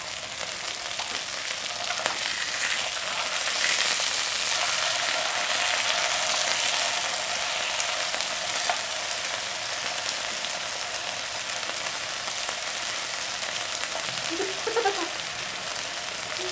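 Slices of marinated beef and potato rounds sizzling on a hot grill pan: a steady frying hiss, a little louder a few seconds in.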